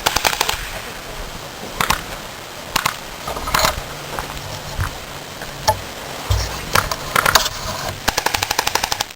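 Airsoft guns firing, mostly single shots and short bursts. A fast burst of about a dozen shots comes near the end.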